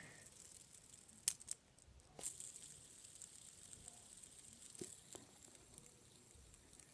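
Near silence with a few faint clicks and taps from fingers handling a spinning plastic fidget spinner; the loudest click comes a little over a second in.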